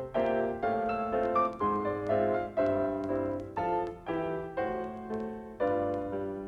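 Piano music: chords struck about twice a second, each fading before the next.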